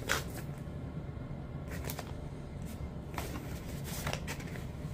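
Rustling and sliding of a clear plastic record sleeve as a vinyl picture-disc LP is handled, in several short swishes.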